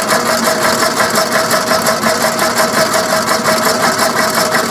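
Car engine idling sound effect, a steady, even, rapid chugging laid over the Lego children's cars along with the cartoon exhaust puffs.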